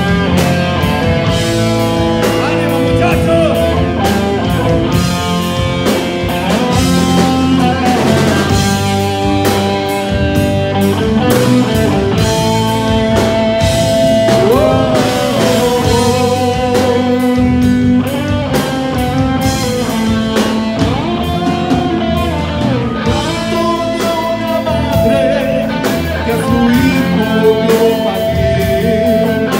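Rock band playing live through amplifiers: electric guitar and electric bass over a drum kit, continuous and loud, with bending guitar notes.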